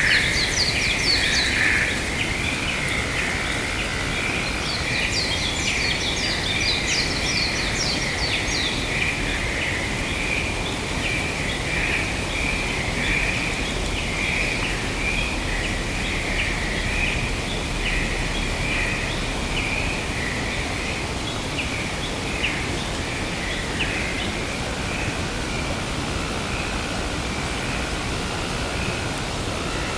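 Forest ambience: birds chirping rapidly for the first nine seconds or so, over a steady high-pitched drone and an even hiss.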